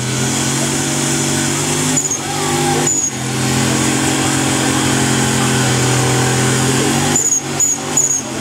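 Turbocharged V8 buggy engine held at high revs in a burnout, with the hiss of spinning tyres. The engine note drops briefly about two and three seconds in, and after about seven seconds it breaks into short blips of the throttle.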